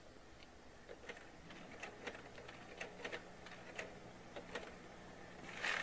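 Faint, irregular light clicks and ticks over a steady low electrical hum, with a short burst of noise near the end.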